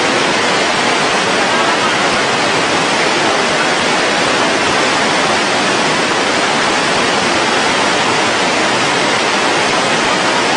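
A river in flood rushing past: a loud, steady roar of fast-moving floodwater that does not let up.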